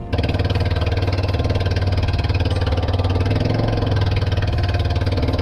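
Small wooden fishing boat's engine running steadily with a fast, even beat.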